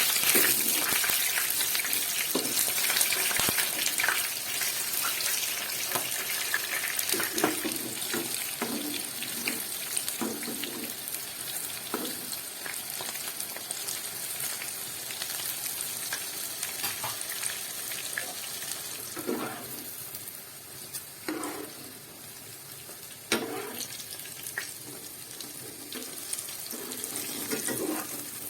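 Food frying in hot oil, sizzling steadily, with a spatula stirring and scraping in the pan now and then. The sizzle gradually gets quieter through the second half.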